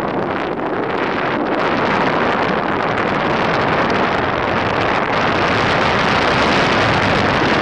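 Airflow rushing over the camera microphone during a paragliding flight: a steady, loud buffeting hiss with no engine tone, building slightly stronger after the first second or two.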